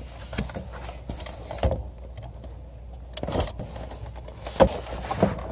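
Scattered plastic clicks and knocks from a car door trim panel being lifted off and handled, over a low steady hum.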